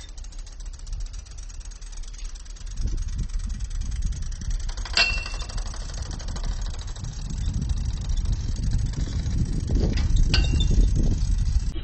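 Bicycle rolling over rough grassy ground, a low rumble with wind on the microphone that grows louder about three seconds in. Two sharp metallic clanks with a brief ringing note come from the bike jolting over bumps, about five seconds in and again near the end.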